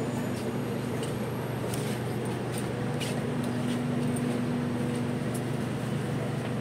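Steady low hum inside a C751B train car standing at a platform with its traction motors silent, with a few faint clicks.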